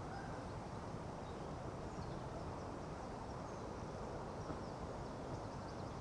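Steady outdoor ambience: an even, low rush of background noise, with a few faint, short bird chirps high above it.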